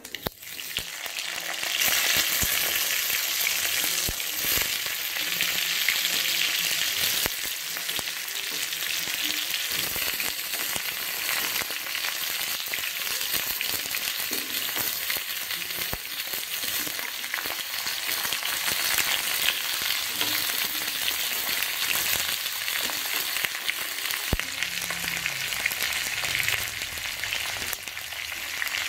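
Hot oil with cumin seeds and dried red chillies sizzling in an aluminium kadai as raw potato slices go in. The sizzle swells over the first two seconds and then holds steady, with a few sharp clicks.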